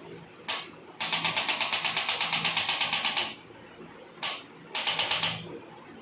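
Rapid mechanical rattling at about ten even strokes a second. A short burst is followed by a run of a little over two seconds, then another short burst and a shorter run of under a second.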